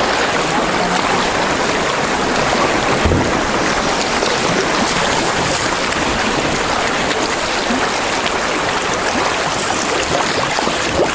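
River rapids rushing steadily around a moving canoe, loud and close. A single brief low thump comes about three seconds in.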